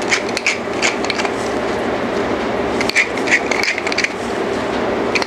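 Wooden pepper mill being twisted by hand, grinding black pepper with a run of quick, irregular crunching clicks.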